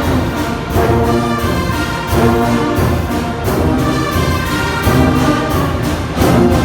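Brass band playing a hymn arrangement in full chords, new phrases coming in about every second and a half over a steady low bass line.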